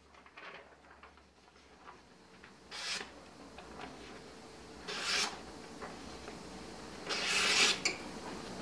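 Freshly sharpened chopper blade slicing through a sheet of paper in a paper-cutting test of the edge. There are three slicing strokes about two seconds apart, and the last is the longest and loudest.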